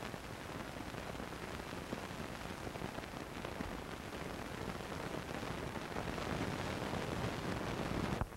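Steady hiss of an old recording's soundtrack, with no other sound in it, cutting off suddenly near the end.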